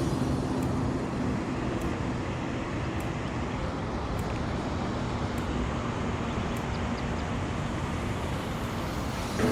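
Steady low rumbling outdoor background noise with a faint hum that fades out early on and returns in the second half, and light ticks about once a second.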